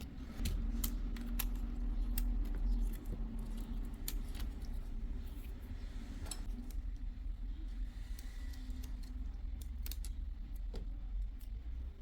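Scattered light clicks and taps of small tools and phone parts being handled on a workbench during a screen replacement, over a steady low hum.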